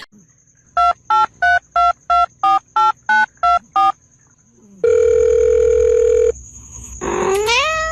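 A telephone number being dialled on touch-tone keys: ten short two-tone beeps at about three a second. Then a steady phone tone for about a second and a half, and near the end a rising cry starts.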